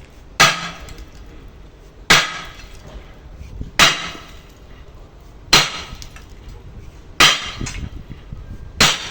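Hammer blows on the steel of a Cat excavator's track link, six strikes at an even pace of about one every second and three quarters, each with a short metallic ring.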